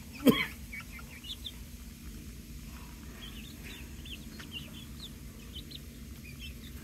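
A flock of young chickens (pullets) softly peeping and chirping while they peck at papaya. One loud, short call falling in pitch comes just after the start.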